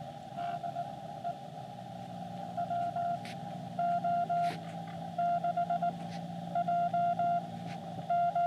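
Morse code (CW) tones from a Xiegu X6100 ham radio transceiver: a single steady beep keyed on and off into dots and dashes, in about five short groups, over a faint low hum.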